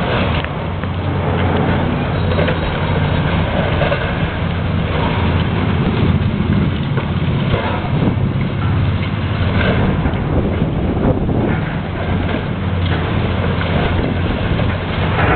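Heavy demolition machine's engine running steadily, with scattered knocks over its drone.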